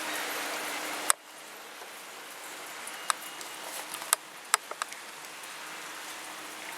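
Heavy rain hissing, cut off with a sharp click about a second in, after which softer rain goes on with a few scattered sharp drip ticks.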